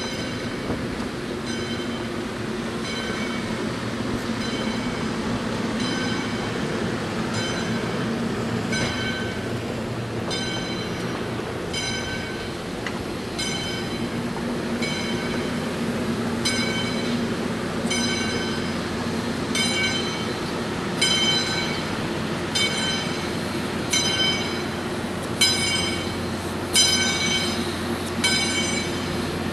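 Steam locomotive's bell ringing steadily, about once a second and louder near the end as the locomotive comes closer, over the low rumble of passenger cars rolling slowly past on the rails.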